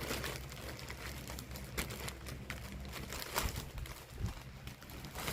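A parcel being opened by hand: packaging crinkling and rustling, with scattered small clicks and taps, over a faint low hum.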